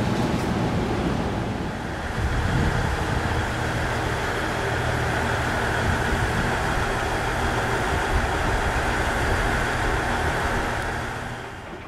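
A KiHa 110-series diesel railcar idling, a steady low engine hum, from about two seconds in.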